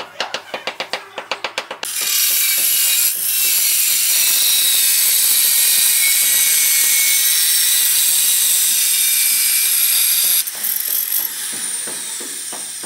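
A handheld angle grinder cutting a glazed ceramic floor tile: a loud, high-pitched screeching grind that starts suddenly about two seconds in and holds steady for about eight seconds, then drops and tails off as the blade comes off the tile. Before it, a rhythmic drum beat of background music.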